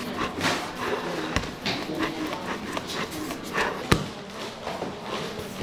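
Irregular light taps and knocks of tools on a hard work surface, with two heavier thuds about a second and a half and about four seconds in.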